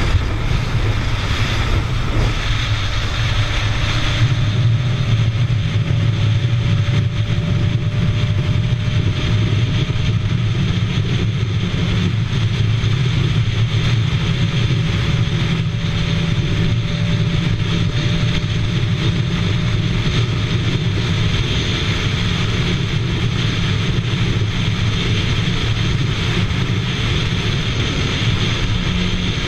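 Bajaj Pulsar RS200's single-cylinder engine running flat out at high speed, mixed with loud, steady wind rush over the microphone as the bike climbs towards its top speed of about 166 km/h. A faint whine underneath rises slowly, breaks off about twelve seconds in, then rises again.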